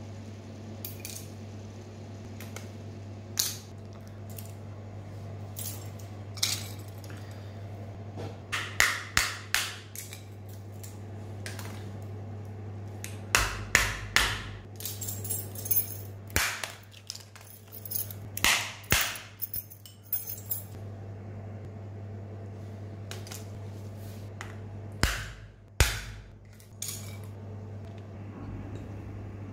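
Scattered clicks, taps and scrapes of a Nokia Asha 310's plastic parts, battery and small hand tools (a knife and a screwdriver) being handled and pried at on a hard tiled floor as the phone is taken apart, over a steady low hum. The clicks come in clusters, busiest through the middle and again near the end.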